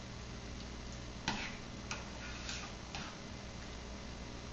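A utensil clicking against a ceramic bowl as mashed sweet potato is stirred: four light taps about half a second apart, the first the loudest, over a low steady hum.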